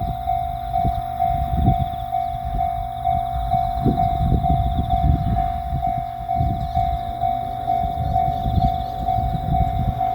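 Japanese railroad crossing's warning bell ringing steadily, about two strokes a second, over a low uneven rumble.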